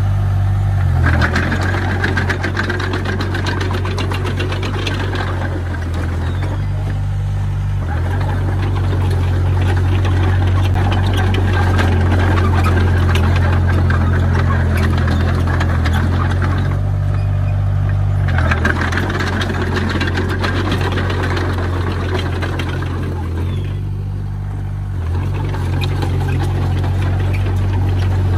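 Komatsu D20P bulldozer's diesel engine running at work with a steady low engine note and clatter. It eases off four times, about a second in, around seven, seventeen and twenty-four seconds in, and pulls back up each time.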